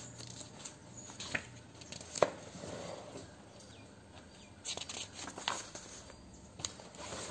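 Pages of a paperback school textbook being turned by hand: paper rustling with a few short sharp snaps, the loudest about two seconds in and a cluster around five seconds in.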